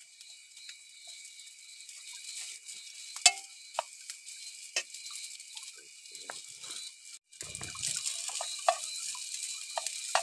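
Scattered clicks and knocks of things being handled, over a steady high hiss with a faint high whine in it. About seven seconds in the sound drops out for an instant and the hiss comes back louder.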